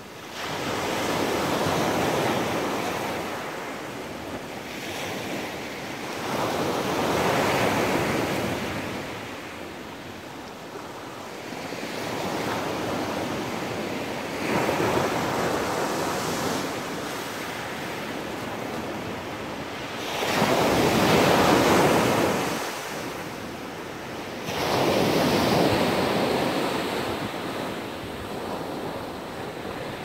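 Sea waves breaking and washing up a pebble beach, each wave swelling and fading again about every five to six seconds.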